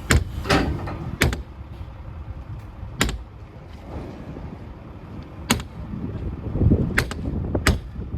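An out-the-front knife's glass-breaker tip striking a car window again and again: about seven sharp hits, some in quick pairs and others a couple of seconds apart.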